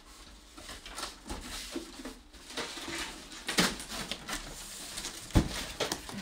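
A cardboard box being opened by hand: its flaps are pulled back and packaged food inside rustles and knocks as hands reach in. There is a sharp knock about five and a half seconds in.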